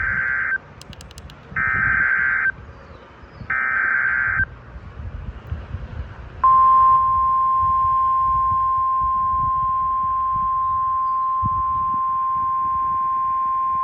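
NOAA Weather Radio emergency alert: three bursts of SAME digital header tones, each about a second long with a second's gap, then about six and a half seconds in the steady single-pitch warning alarm tone starts and holds, marking a warning broadcast (here a tornado warning). Faint radio static runs underneath.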